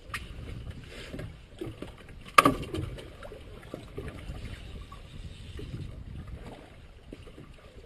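Steady low rumble of a boat at sea. About two and a half seconds in, a single sharp knock rings briefly: a landing net knocking against the boat's gunwale as it is set down.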